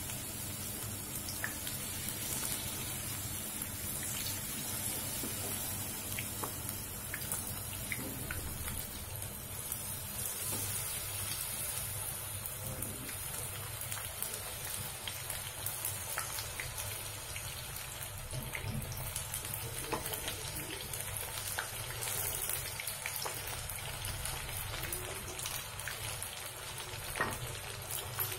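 Batter-coated mushrooms deep-frying in hot oil in a kadhai: a steady sizzle with scattered small pops.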